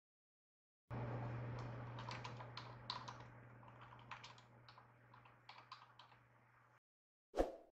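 Computer keyboard typing: a run of irregular key clicks over a low steady hum, starting about a second in and stopping about a second before the end. A single short thump follows near the end, louder than the typing.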